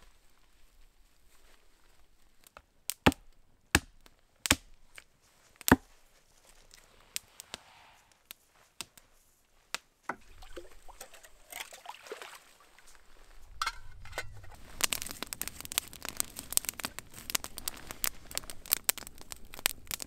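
Four loud, sharp knocks about a second apart, three to six seconds in. From about halfway a campfire starts crackling, getting denser and busier toward the end.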